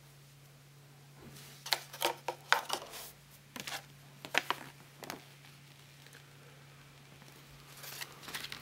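Light clicks and rustles of small objects being handled on a tabletop, in a quick cluster for a few seconds and again near the end, over a steady low hum.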